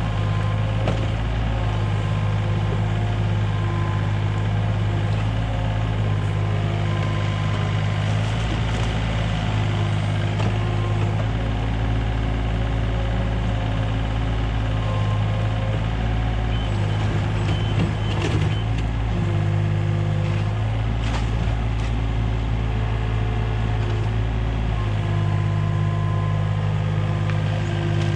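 IHI 30VX mini excavator's diesel engine running steadily under digging load, with whining tones that step up and down in pitch as the boom and bucket are worked. A few short knocks come about two-thirds of the way through.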